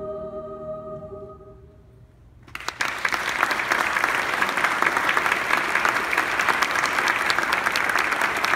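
The song's final held chord fades away over the first couple of seconds; after a short hush, the audience bursts into applause about two and a half seconds in and keeps clapping.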